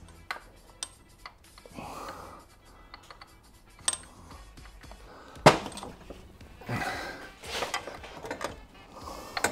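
Metal clinks and knocks as a CBR600RR rear shock and its mounting bolts are worked into place on a motorcycle frame, with one sharp knock about halfway through.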